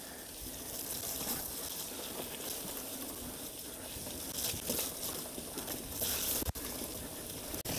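Mountain bike tyres rolling through wet mud and puddles, a steady wet hiss and crackle of tyre on mud and water, with a couple of louder splashing swishes a little past halfway and again a bit later.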